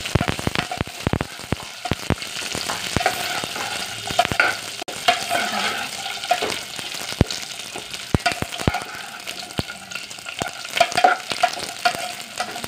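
Dry fruits (fox nuts, almonds, coconut, raisins and chironji) sizzling in desi ghee in a metal pot. A ladle stirs them, with frequent sharp clinks and scrapes against the pot, as the nuts are lightly browned.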